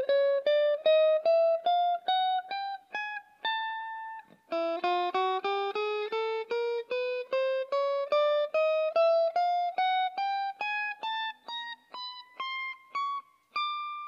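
Tokai ES-60 semi-hollow electric guitar played as single picked notes in two ascending scale runs, about three notes a second. The first run ends on a held note about four seconds in. The second climbs higher and ends on a ringing held note near the end.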